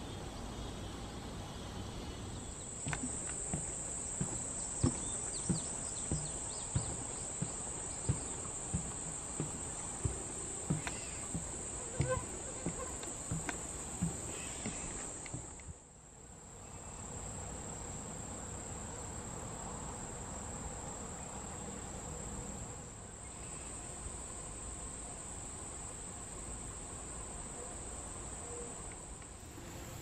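A steady high-pitched insect chorus of crickets or katydids. From about three to fourteen seconds in it is joined by a run of light thumps at a regular walking pace, about one and a half a second.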